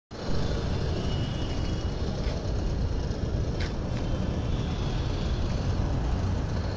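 Large intercity coach's diesel engine running with a steady low rumble, with a few brief sharp ticks or hisses about halfway through.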